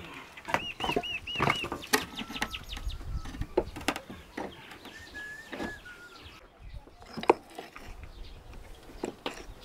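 Chickens clucking: a quick run of five calls about half a second in. Scattered sharp clicks and knocks follow through the rest.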